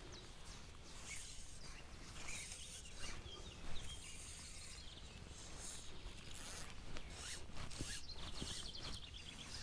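Faint outdoor background with short, intermittent rustling and swishing sounds, zip-like, coming several times, and a small knock near the middle.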